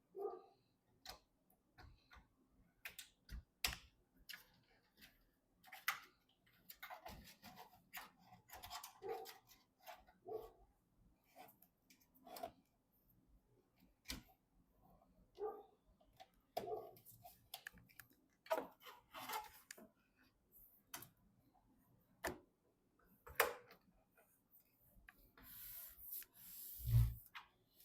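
Faint, irregular clicks, taps and light rustling of computer parts and packaging being handled during PC assembly, with a louder rustle and a dull thump near the end.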